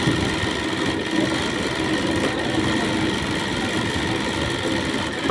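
Sonex overlock sewing machine, driven by its servo motor, running steadily at speed with an even, continuous mechanical hum.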